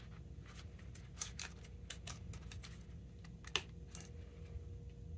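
Small irregular clicks and scratches of a plastic grommet strip being stretched and worked onto a tennis racket frame, with one sharper click about three and a half seconds in. A low steady hum runs underneath.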